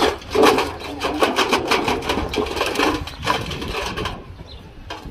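Husky puppy pawing and splashing water in a stainless steel bowl: a rapid, irregular run of splashes and knocks of paws against the metal bowl, thinning out about three seconds in and dying away about a second later.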